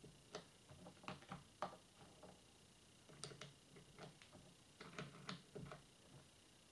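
Plastic keycaps being pushed onto key switch stems: faint, irregular clicks and taps of plastic.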